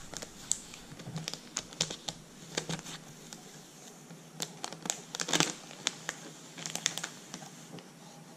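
Clear plastic top sheet crinkling and crackling as it is peeled slowly off a blue paint mask, in irregular snaps that come thickest about halfway through.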